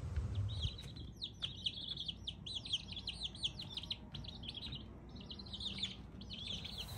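A brood of young Easter egger and starlight green egger chicks peeping, many rapid high chirps, each falling in pitch, overlapping almost without a break and stopping just before the end.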